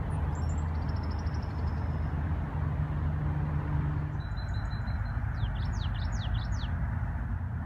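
Small songbirds calling over a steady low rumble of traffic. There is a short high trill near the start, a held high note a little past halfway, then a string of quick up-and-down whistles.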